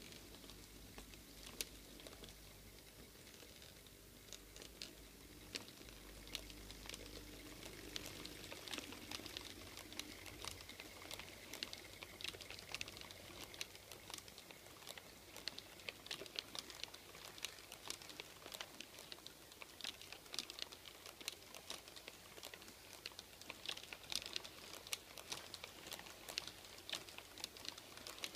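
H0-scale model train wheels clicking and rattling over the rail joints and points as a model diesel locomotive and its string of tank wagons roll past. The clicks are irregular and get denser as the wagons pass close, over a faint hum in the first few seconds.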